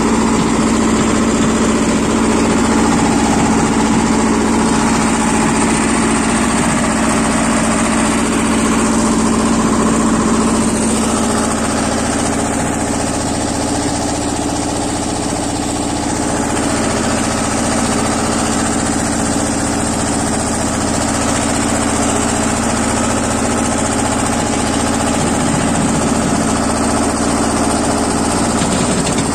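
Lombardini 5LD-825-2 two-cylinder air-cooled diesel of a BJR F 3800 compact tractor running steadily under load while pulling a box blade over a dirt track. The engine note eases a little about ten seconds in, then picks back up near the end.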